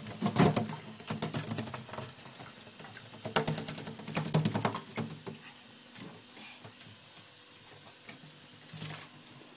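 Rainbow lorikeet bathing under a thin stream from a sink tap, splashing as it flutters its wet wings in quick spells: one at the start and another about three to five seconds in. Between them the tap trickles on.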